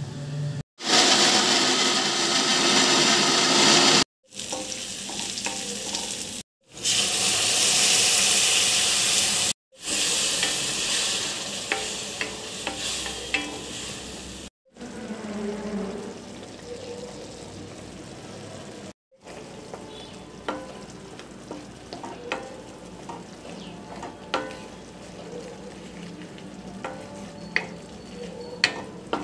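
Onion-tomato masala frying in oil in a kadai. It starts with loud sizzling that cuts off suddenly several times and settles to a softer frying, and near the end the wooden spatula ticks against the pan as the masala is stirred.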